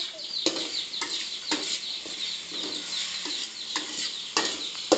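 A metal spatula knocks and scrapes against a wok about once every half to three-quarters of a second as food is stir-fried over a gas flame, over a frying hiss. Chickens chirp rapidly in the background throughout.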